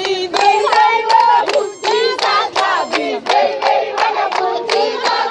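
A group of adults and children singing loudly together, clapping their hands in time at about three claps a second.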